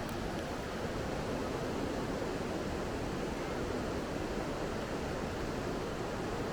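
Steady rushing of river water pouring over a low-head dam, an even unbroken roar with most of its weight in the low and middle pitches.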